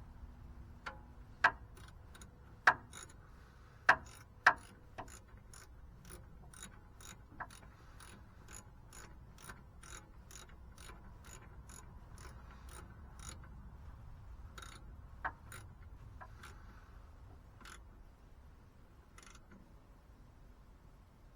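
Ratchet wrench clicking in an even run of about two to three clicks a second as the bolts of a truck's replacement starter motor are run in, after a few sharp metal knocks near the start. The clicking stops about two-thirds of the way through, leaving a few scattered clicks.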